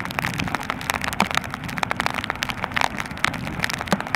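Wind buffeting the microphone and water rushing and splashing past the hull of a sailing yacht heeled under sail, with spray breaking off the bow; a dense, crackling rush with a steady low rumble beneath.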